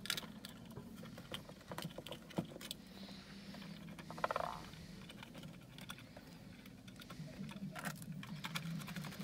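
Small metal clicks and taps as washers and nuts are fitted onto the potentiometer shafts of a guitar amp's control panel, with a brief louder rattle of clicks about four seconds in.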